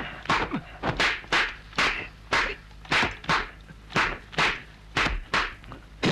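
Dubbed kung fu fight sound effects: a rapid, regular series of sharp whooshing strikes and slaps from hand blows and blocks, about two a second, over a low steady hum.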